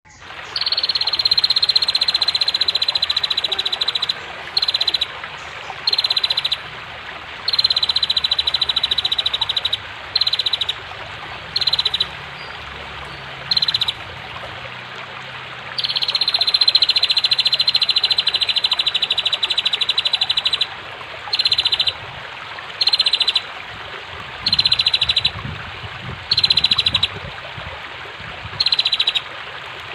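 Female prinia (prenjak) calling in rapid buzzing trills, two long ones of several seconds, the first from the start and the second about halfway, with many short half-second bursts between, over a steady rush of flowing water.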